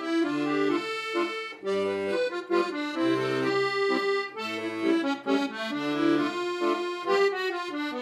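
Background music: an accordion-like melody of held notes over a bass line, the notes changing every half second or so.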